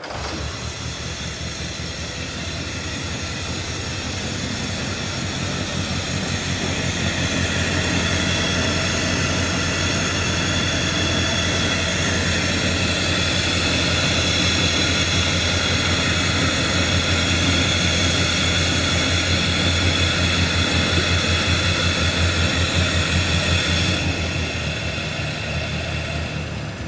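Land Rover's four-cylinder petrol engine starting at once and running at a steady fast idle. It grows louder over the first several seconds, then eases off near the end.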